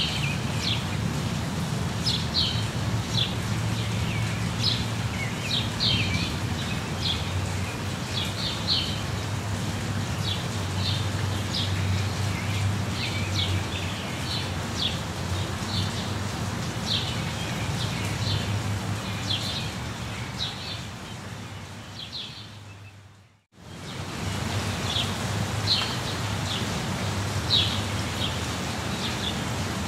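Steady rain with birds chirping again and again over it, and a low rumble underneath. About three-quarters of the way through, the whole sound fades out to silence for a moment and then fades back in.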